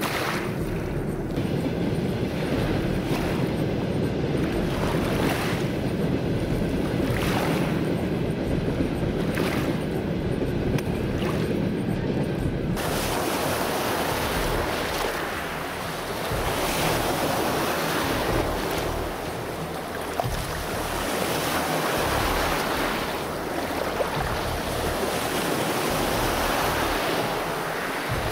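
Small waves of Lake Baikal washing over a pebble shore, a wash every second or so. About halfway through, the sound changes to fuller, hissing surf foaming up a sandy shore, swelling and easing.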